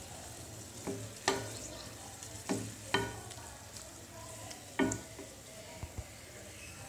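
Wooden spatula stirring a thick cabbage and tomato gravy in a pan over a low simmering sizzle, with about five sharp scrapes and knocks against the pan.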